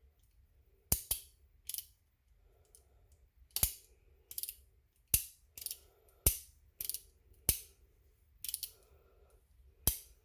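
Action of a Heritage Rough Rider .22 single-action revolver being worked by hand: sharp metallic clicks, often in pairs about a second apart, with a faint ratcheting between them as the cylinder turns and indexes. This is a function check after reassembly, and the cylinder is turning well.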